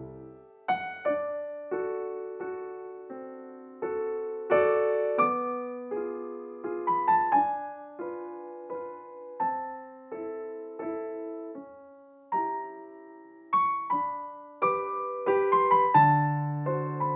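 Background piano music: a gentle melody of single notes and soft chords, each note struck and left to fade.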